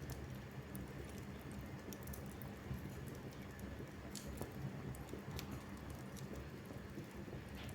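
Fire crackling in a fireplace: scattered sharp pops and snaps, irregularly spaced, over a low steady rumble from the flames.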